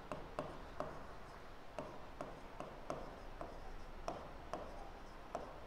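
Faint pen strokes on an interactive display's touchscreen while handwriting: short, light taps and scratches at an irregular pace, about two a second.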